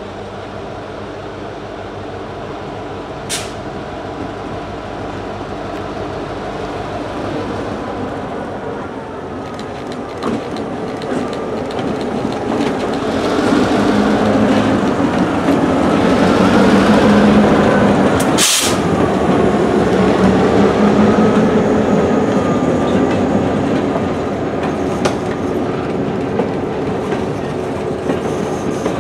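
Diesel freight locomotive rumbling as it approaches and passes close by, growing louder to a peak past the middle and then easing as the freight cars roll by with a clickety-clack of wheels. A faint wavering high squeal from the wheels on the curve runs through the middle. A single sharp bang comes a little past halfway.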